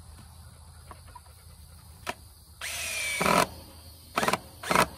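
Cordless drill driving screws into wood: one run of under a second a little past halfway, then two short bursts near the end.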